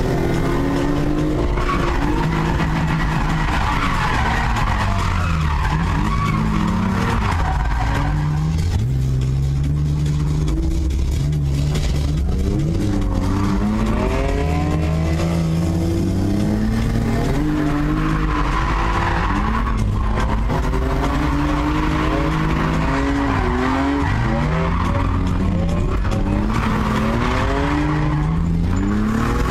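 BMW E36 drift car's engine revving up and down again and again through a drift run, with tyre squeal coming and going, heard from inside the cabin.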